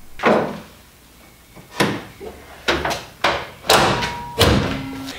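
The hood of a Subaru Forester being shut and pressed down, giving a run of six separate dull thuds and knocks over about four seconds.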